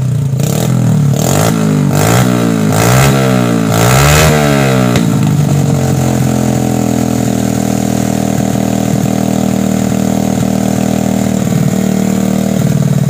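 Suzuki Smash's single-cylinder four-stroke engine, stock inside, running through an aftermarket racing exhaust. It is blipped in a quick series of revs over the first five seconds, settles to a steady idle, and is revved up again near the end.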